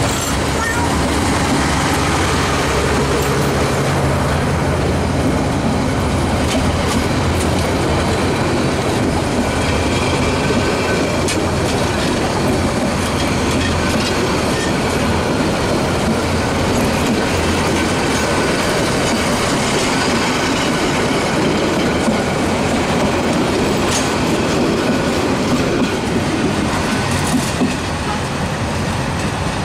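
Diesel-hauled metre-gauge express train running, a steady loud rumble of wheels on the track with scattered clicks of the rail joints. It eases off a little near the end.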